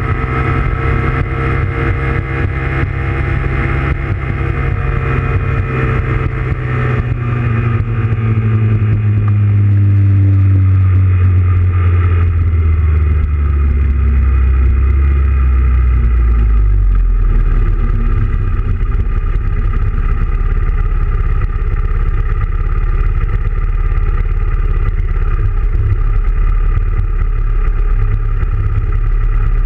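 Honda Grom's 125 cc single-cylinder engine running as the bike rides along, its pitch falling steadily from about four seconds in as it slows. It settles into a steady idle from about seventeen seconds in.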